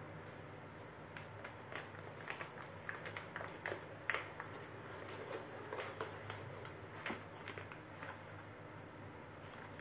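Hands handling a motherboard box and its packaging: a string of light clicks and taps, most of them in the middle seconds, over a low steady hum.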